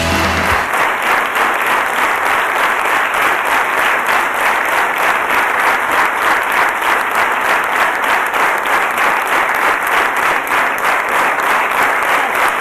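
Audience applauding steadily in a theatre, a dense even clapping that follows the end of rock music cut off about half a second in.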